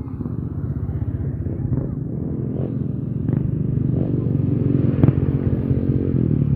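Small motorcycle engines running as motorcycles pass close by. The engine sound grows louder in the second half.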